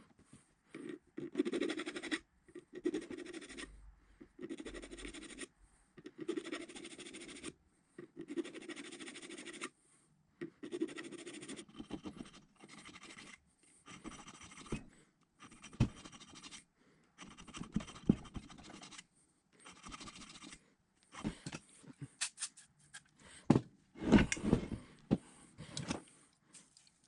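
Metal-on-metal scraping in repeated strokes of about a second each, as a steel drill press spindle is worked back and forth in its cast step pulley. Shorter rubs and sharp clacks of metal parts being handled follow, and the loudest clacks come near the end.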